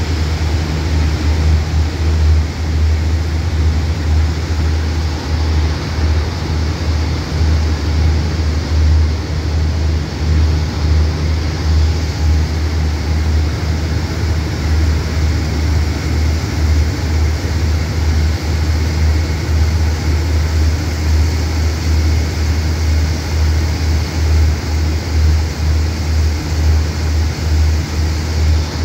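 Steady low rumble with a constant hiss from a standing test train's engine running at idle while it waits at a signal.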